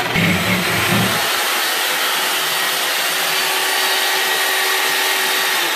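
Corded reciprocating saw running, its blade cutting through a wooden wall stud: a steady, loud rasping whine, rougher and heavier in the first second as the blade bites into the wood.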